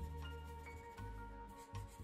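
Background music: a melody of short pitched notes over a low bass line that changes note about every half second.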